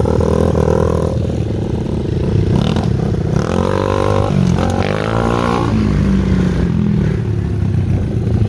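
Motorcycle engine running, its revs rising and falling a few times around the middle.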